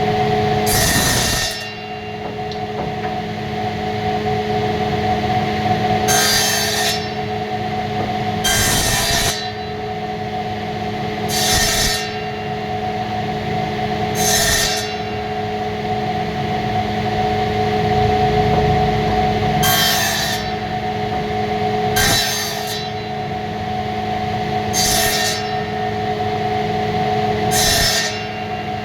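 Woodworking machine hum running steadily, with a short harsh cutting or rasping stroke on wood every two to three seconds, nine in all.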